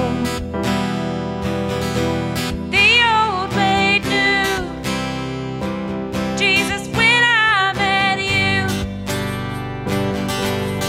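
A worship song played live: strummed acoustic guitar with digital piano and electric bass, and sung vocal phrases with vibrato over the chords.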